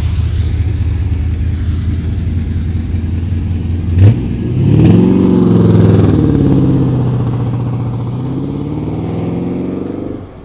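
1979 Chevrolet Corvette's L82 350 V8 with Hooker headers running at a steady idle, then a short sharp knock about four seconds in. The engine then revs up as the car accelerates away, its exhaust note fading with distance.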